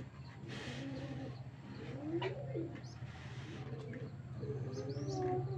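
Domestic pigeons cooing, a series of low rising and falling coos, over a steady low hum. A few high chirps come in near the end.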